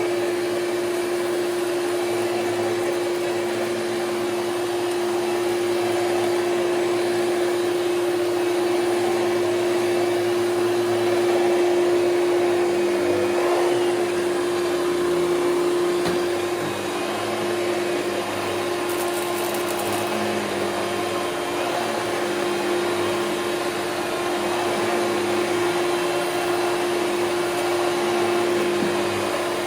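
Hoover Celebrity QS canister vacuum cleaner running on high speed and sucking up debris: a steady rush of air with one strong, even motor tone, swelling slightly about twelve seconds in and easing off a little after. Its motor's top bushing has only been lightly lubricated, a temporary fix that the owner says still leaves it not sounding great.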